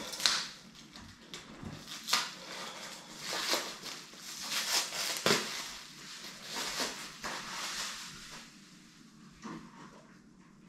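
Packaging around a pack of sprats being handled and opened: crinkling and rustling in a string of short bursts that die down near the end.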